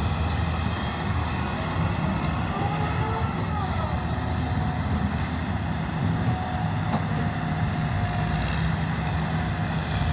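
Diesel engines of a hydraulic excavator and a backhoe loader running steadily under load while cutting and moving earth, with a faint steady whine for a few seconds past the middle.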